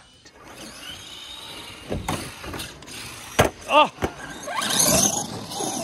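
Arrma Gorgon 1/10 RC monster truck with a Mega 550 brushed electric motor, driving on concrete, with a few sharp knocks. Near the end its motor whine rises and the tyres squeal as it speeds up.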